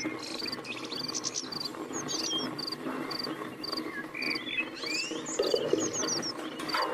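Insect chirping in a steady rhythm, about two short high chirps a second, with bird chirps scattered over it.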